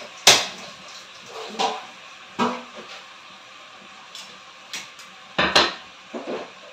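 Kitchenware being handled at a dish rack: a string of sharp clinks and knocks of dishes and utensils, the loudest just after the start and a quick cluster of them near the end.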